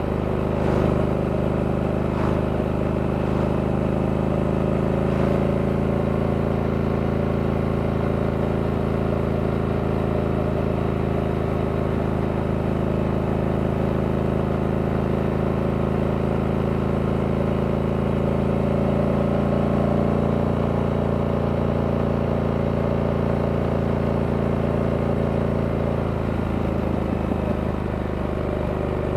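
Stock 2023 Harley-Davidson Sportster S's Revolution Max 1250T V-twin running at a steady cruising speed, its note holding nearly one pitch. It eases off slightly near the end.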